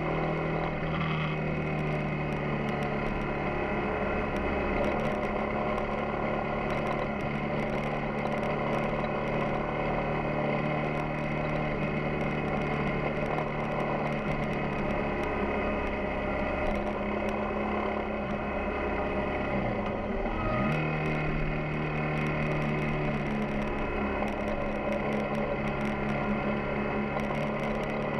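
Yamaha XTZ 250 Ténéré's single-cylinder engine running steadily while riding, with a brief drop and rise in engine pitch about twenty seconds in.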